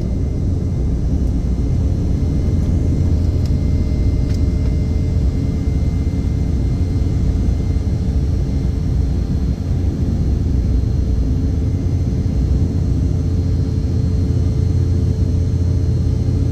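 Airliner cabin noise in flight: a steady low rumble of engines and rushing air, with a faint constant hum.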